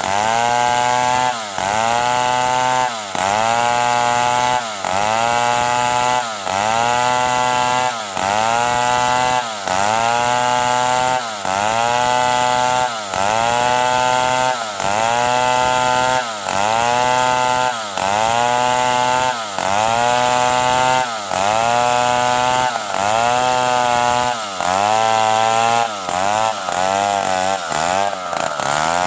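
Stihl 070 two-stroke chainsaw running hard while cutting wood, its engine pitch dropping under load and climbing back about every second and a half, the dips coming a little quicker near the end.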